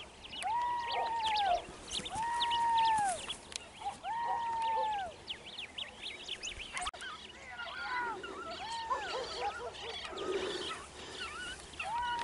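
Beagle hounds baying on a scent trail, the sign that the pack is working a rabbit or hare. At first there is a regular run of long, arched howls about every second and a half, and in the second half come shorter, overlapping cries from more than one dog.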